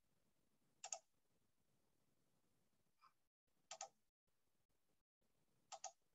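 Faint computer mouse clicks over near silence: a quick double click about a second in, a soft single click around three seconds, and two more double clicks near four and six seconds.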